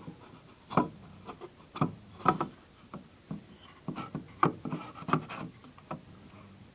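Wooden wall plaques with cast-metal pistols being handled, giving a string of irregular wooden knocks and rubs. The loudest knocks come at about a second in and again about two seconds in.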